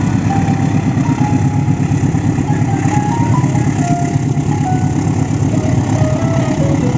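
A steady engine-like rumble, with a simple tune of short single notes playing over it.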